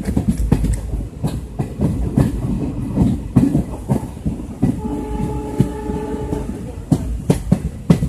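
Moving passenger train heard from a coach window: wheels and carriage clattering and rumbling over the track, with irregular knocks. Around the middle a train horn sounds a steady chord for under two seconds.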